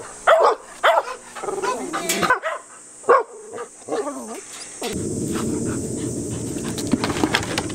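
Dogs barking and whining in short, high yips, one after another. About five seconds in the barking stops and a steady rushing noise takes over.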